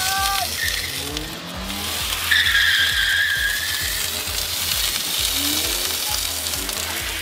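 Water hissing and sizzling as it is poured onto a very hot turbocharger on a Toyota 2500 twin-turbo engine, flashing into steam after a hard run. About two seconds in, a steady squeal joins it for about two seconds.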